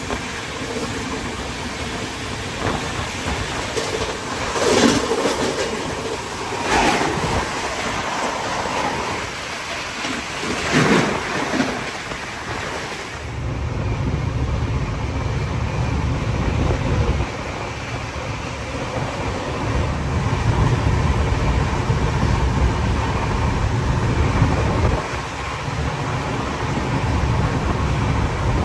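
Shatabdi Express coaches running at about 150 km/h: rushing wind and rail noise at an open coach door, with a few brief louder whooshes in the first dozen seconds. About halfway through, the sound turns to a deeper, duller rumble of the wheels heard from behind a closed door window.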